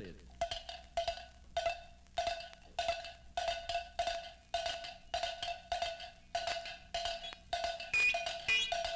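Wood block struck in a steady, even clip-clop rhythm, a sound effect for the ox's hooves as he hurries off. Higher ringing notes join in near the end.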